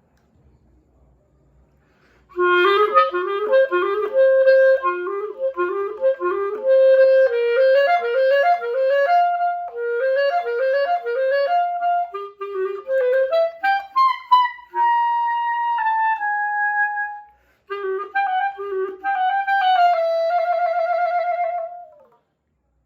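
Solo clarinet, its reed held by an elastic-cord ligature, playing a melody: quick runs of short notes beginning about two seconds in, then a few long held notes, a brief break, and a last held note that wavers rapidly before it stops.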